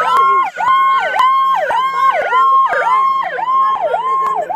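Police car sirens: one yelping in quick dips about twice a second, with a second siren's slow rising wail over it.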